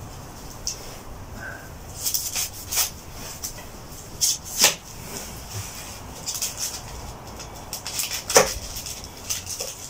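Knife cutting onions on a metal plate: irregular light clicks and taps, with a sharper knock about four and a half seconds in and another near eight and a half seconds.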